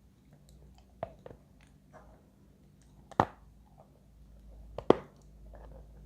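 Chalk being bitten and chewed, with a few sharp separate crunches: two close together about a second in, then loud single ones about three and five seconds in.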